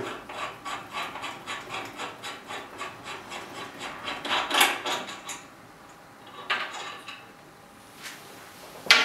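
Short metal-on-metal rubbing and scraping strokes, about two or three a second for the first five seconds, then a few more a little later. The sound comes as the valve cap is turned by hand on the lapping tool's fixture.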